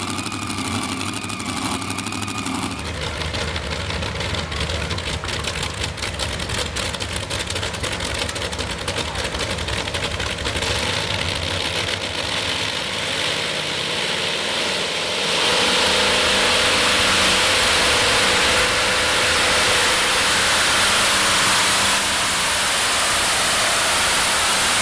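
Supercharged engines of a modified pulling tractor running at the start line, revving up and down. About fifteen seconds in they go to full throttle for the pull, much louder and steady.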